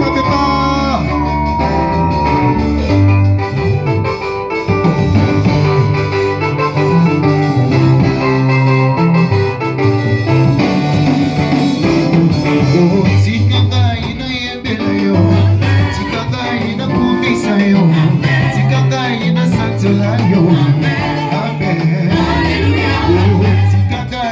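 Live church worship band playing an upbeat gospel song on electric keyboard, guitar and bass with a steady beat, with some singing.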